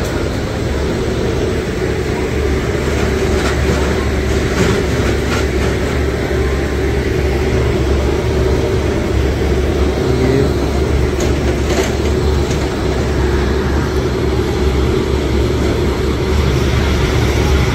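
Stationary Indian Railways electric locomotive running with a steady low hum and whir, with a few faint clicks about ten to twelve seconds in.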